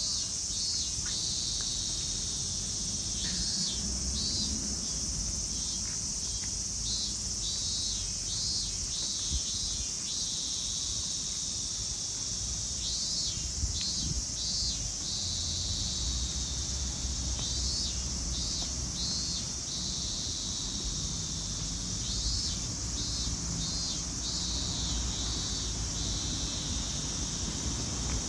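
Insects calling in a steady high drone, with clusters of rapid chirps every few seconds, over a low steady rumble.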